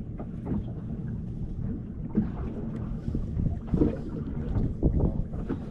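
Small boat moving on the water: a steady low rumble of wind and water, with irregular knocks and splashes against the hull, the loudest about two, four and five seconds in.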